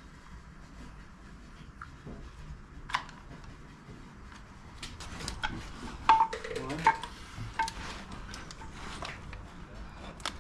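Scattered light metallic clinks and taps of hand tools and parts being handled on a bare engine, with a few brief rings, the clicks coming thicker in the second half.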